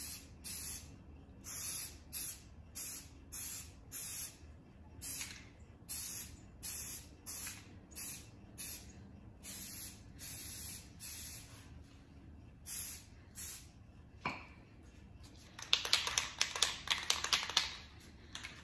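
Aerosol camouflage spray paint can hissing in quick short bursts, about two a second, as paint is dabbed on freehand. Near the end a single knock, then about two seconds of fast rattling from a can being shaken.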